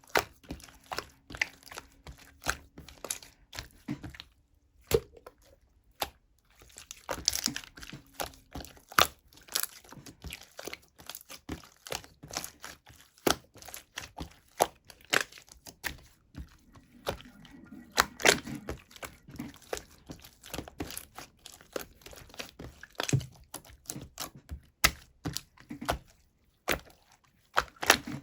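Pink clear slime being pressed and folded by hand, giving irregular sharp pops and crackles. There is a short lull about four seconds in before the popping resumes.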